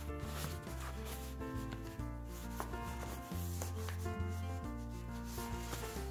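Background music with held notes over a changing bass line. Under it, irregular rustling and scraping of paper as a chihuahua puppy chews and paws a coloring-book page.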